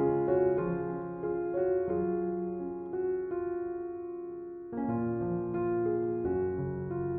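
Slow, gentle piano music of single notes and soft chords that ring on and fade. The notes thin out in the middle, and a new chord comes in about five seconds in.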